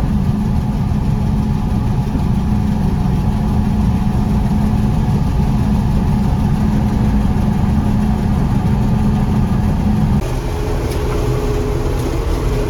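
John Deere 4400 combine running steadily while harvesting corn, heard from the cab as a constant engine and machinery drone. About ten seconds in the drone changes abruptly to a slightly different steady hum.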